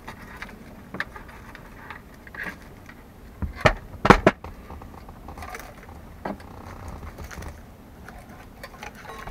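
Plastic instrument cluster and its wire bundle with crimped quick-connect terminals being handled and pulled out of a car dash: scattered light clicks and rattles, with a few sharp knocks about three and a half to four seconds in.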